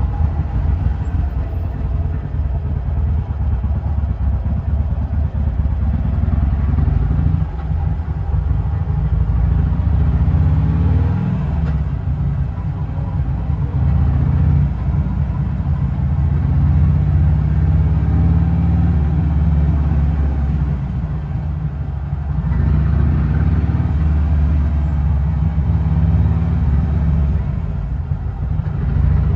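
Harley-Davidson Sportster V-twin engine running under way in traffic, a steady low rumble whose pitch rises and falls several times as the throttle opens and closes.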